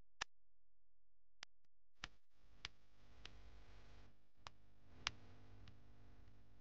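Near silence broken by about nine faint, sharp clicks at uneven intervals, over a faint hiss that starts about two seconds in.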